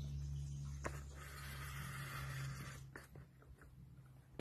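Peugeot XD3 diesel engine idling as a steady low hum that gradually fades away, with a couple of light clicks.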